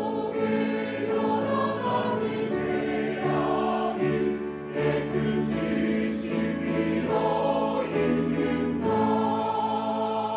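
Mixed church choir singing a hymn in Korean, ending on a long held chord near the end.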